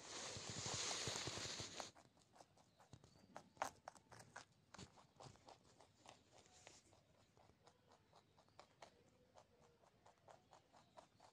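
Pet rabbit crunching a carrot: rapid, irregular small crunchy clicks of chewing. A louder rushing noise covers the first two seconds.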